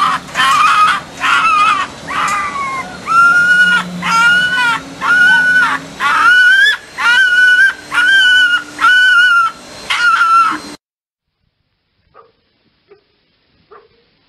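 Fox giving a long series of short, high barking calls at an even pace, about one and a half a second, that stops about eleven seconds in; a few faint short sounds follow near the end.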